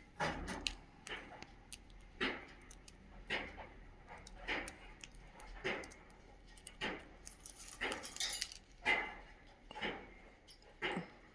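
Cockatiel eating whole rice: small sharp clicks from its beak working the grains, with a louder, short scratchy sound repeating about once a second.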